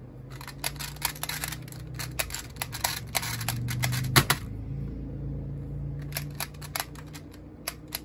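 Rubik's Clock being speedsolved: rapid plastic clicks of its dials turning and pins being pushed, ending in a sharp knock about four seconds in. Clicking thins out, then starts again quickly near the end.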